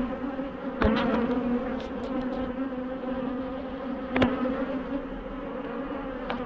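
Honeybees buzzing around an opened hive, a steady hum, with a few sharp clicks about a second in, around four seconds and near the end.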